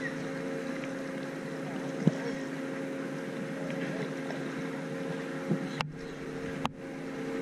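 A motor drones steadily at a low, even pitch. The sound cuts out briefly twice near the end.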